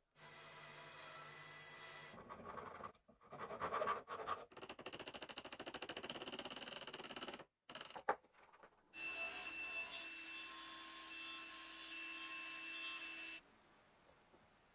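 Woodworking tools cutting and shaping wood in several short edited clips: a steady tool run with a fixed whine, an irregular stretch, a fast even rattle for about three seconds, then another steady whining run that stops abruptly near the end.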